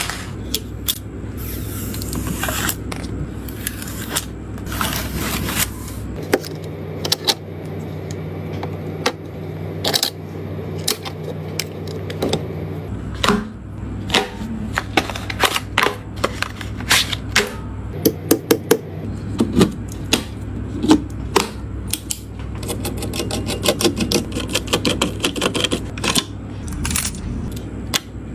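Handling noises of computer parts being unboxed and fitted: a quick run of clicks, taps, snaps and short scrapes of plastic, cardboard and metal over a steady low hum, busiest near the end.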